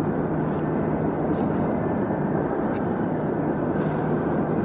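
Steady ambient rumble and hum of a large train-station concourse, with a few faint clicks.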